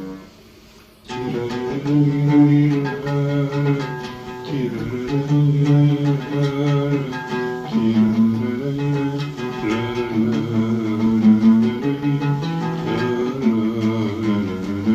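Oud played solo: after a brief pause about a second in, a melodic passage of rapidly repeated plucked notes, sustaining the melody in long, wavering tones.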